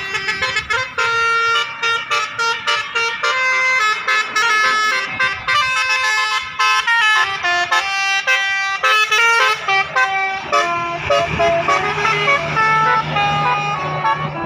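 Basuri 'telolet' musical air horn on a bus playing a quick melody, one steady note after another stepping up and down in pitch. A low steady hum joins underneath in the last few seconds.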